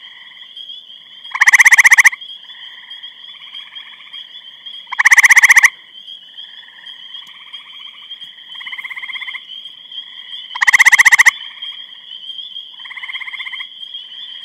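Gray treefrog giving its loud, rapidly pulsed trill three times, each under a second long and several seconds apart. Fainter trills of the same kind come in between, over a steady high-pitched drone.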